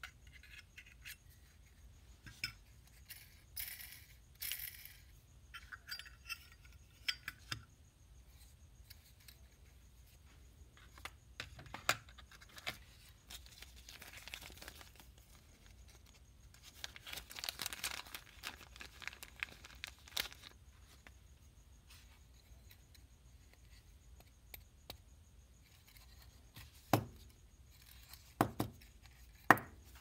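Metal parts of a Zippo lighter clicking and tapping as they are handled and set down on a workbench, with a small plastic parts bag rustling for a few seconds in the middle. The loudest sounds are three sharp taps near the end.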